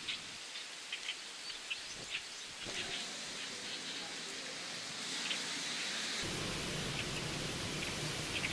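Steady hiss of rain with scattered short, high ticks. About six seconds in, a low rumble of street traffic joins it.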